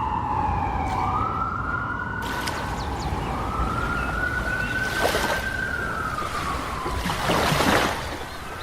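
Siren wailing: one slow tone that rises and falls through several long sweeps, fading near the end, over a steady hiss.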